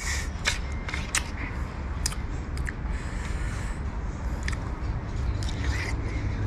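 A metal spoon clicking against a ceramic bowl and wet chewing of ma kho palm fruits in a spicy dressing: a scatter of short, sharp clicks over a low steady rumble.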